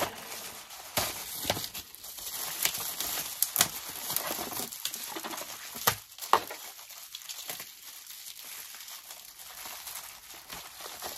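Packaging of diecast toy cars rustling and crinkling as it is handled and unpacked from a shipping box, with scattered light clicks and taps.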